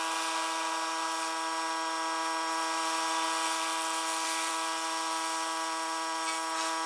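Pressure washer running at a steady pitch, a constant buzzing drone.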